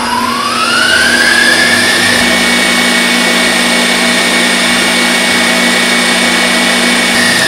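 KitchenAid Professional 5 Plus stand mixer running with its wire whip, whipping cream. Its motor whine rises over the first couple of seconds, then holds steady over a low hum.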